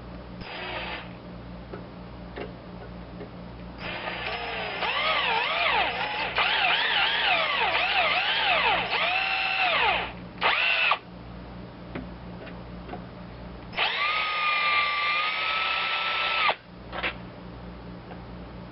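Small high-speed rotary tool drilling old copper wire out of a kill-switch contact, run in bursts: a short one just after the start, a long one from about four seconds in whose whine dips and recovers over and over as the bit bites, a brief one, then a steadier whine for a couple of seconds.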